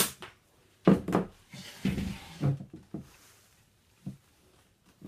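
Pneumatic upholstery staple gun firing once with a sharp crack at the start. It is followed by a few knocks and a stretch of rustling as the padding is handled on the wooden chair frame.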